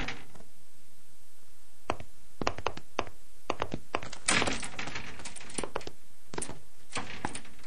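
Scattered light knocks and clicks, with a short rustling cluster about four seconds in: papers and a folder being handled and set down on a wooden desk.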